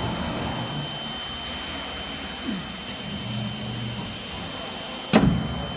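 3-axis CNC machining centre running, its spindle head travelling along the gantry with a steady mechanical whir and a high steady whine. A single loud thump sounds about five seconds in, and the high hiss drops away after it.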